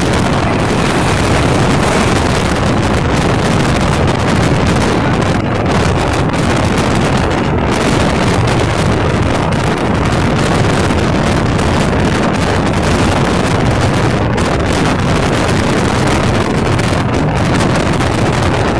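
Steady, loud running noise of a moving train, with wind buffeting the microphone.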